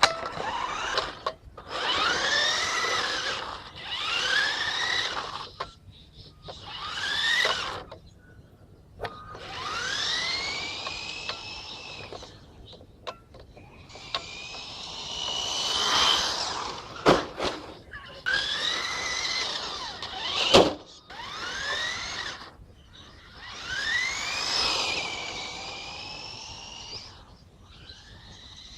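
Electric motor of a homemade battery-powered remote-control car whining in repeated bursts as the throttle is pressed and released, its pitch rising with speed and falling away each time. Two sharp knocks come about two-thirds of the way through.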